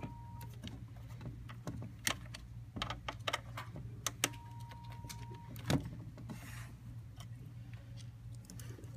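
Hand screwdriver driving screws through a steel concealed hinge into wood: a scatter of small metal clicks and taps, with a thin steady squeak lasting about a second midway. A low steady hum runs underneath.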